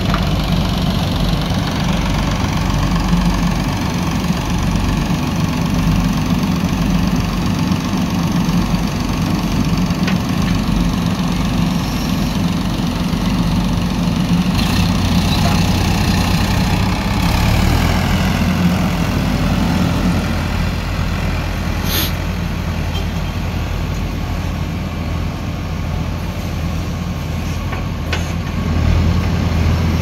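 Diesel engines of a JCB 3DX backhoe loader and a Sonalika tractor running steadily as the backhoe works. Just past halfway the drone drops to a lower pitch, and a single sharp click comes about two-thirds of the way in.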